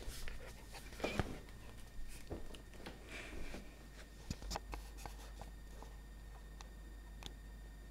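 Light scattered clicks and scratches of a sheltie puppy at play, its claws and paws on a wooden floor, busiest in the first few seconds and then thinning out.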